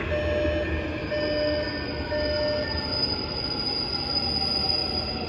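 Incheon Subway Line 1 train heard from inside the car while it runs: a steady rumble with thin high whines that come and go in short stretches for the first couple of seconds, then a high steady whine that sets in about halfway through.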